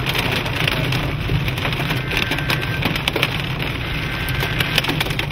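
Hailstones hitting the car's roof and windshield in an irregular clatter of sharp knocks, over the steady noise of heavy rain and the car driving. The hail is large.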